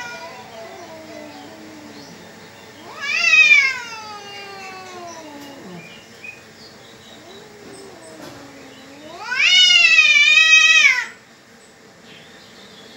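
Two domestic cats yowling at each other in a territorial standoff. A drawn-out wail about three seconds in slides down in pitch, with quieter low growling cries in between. Near the end comes a louder yowl that rises and holds with a wavering pitch for about two seconds before cutting off.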